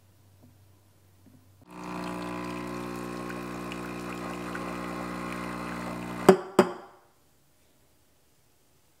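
Espresso machine pump humming steadily while a shot pours into a cup, starting a couple of seconds in and cutting off with two sharp clicks.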